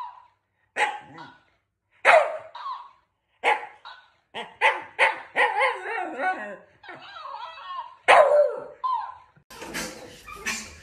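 A dog barking repeatedly: single barks about a second apart, then a quicker run of barks in the middle. Near the end a steady hissy background comes in.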